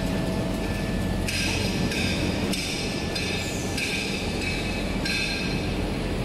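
Automatic maxi-roll toilet paper band saw cutting machine and its belt conveyors running steadily. A high, hissing rattle comes and goes in stretches of about a second over a constant low machine hum.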